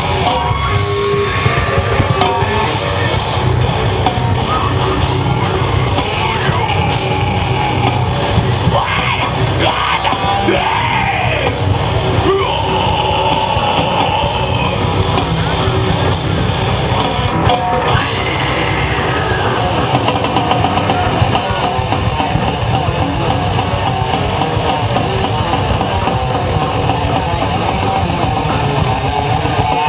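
Rock band playing a loud, dense heavy song, with guitars and drums and what sound like shouted vocals in the first half.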